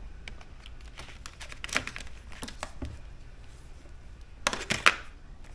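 Dry-erase markers being handled and swapped at a whiteboard: light clicks and rustles, with two sharper clicks near the end.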